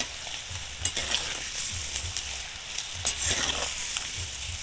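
Peanuts deep-frying in hot oil in a steel karai: a steady sizzle, with several short scrapes and clinks as a slotted steel spoon stirs them.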